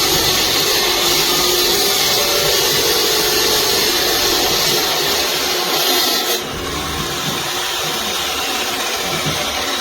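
VEVOR 12-inch 1800 W electric concrete saw running at speed, a loud hissing, high-pitched power-tool sound. About six and a half seconds in the high-pitched part cuts off suddenly, leaving a duller, steady noise.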